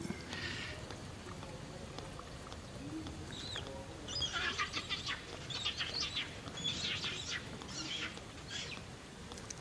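Baby macaque crying: high-pitched screechy calls, one at the start and then a run of about six short cries in quick succession from about four seconds in.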